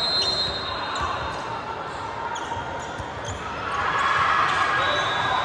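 Echoing volleyball-hall ambience: players' and spectators' voices with the thuds of balls bouncing on the hardwood court. A high steady whistle tone sounds near the start and again near the end, and the voices swell about four seconds in as a player serves.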